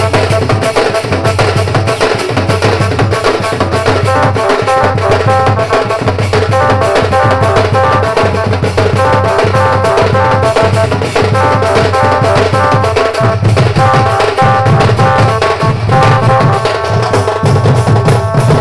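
A band baja (Indian street band) playing loud, fast kemta-style music. Barrel drums keep up a dense, driving beat under a repeating melody line.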